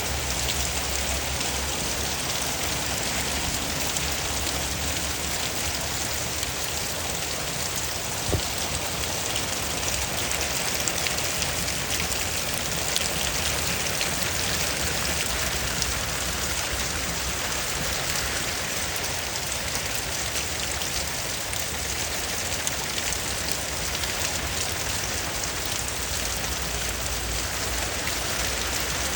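Steady rain falling, a continuous even hiss of drops striking surfaces, with one sharp tap a little over eight seconds in.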